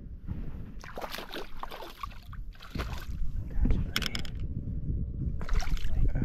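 Wind buffeting the microphone over water splashing and lapping against a fishing boat's hull, with several short splashes.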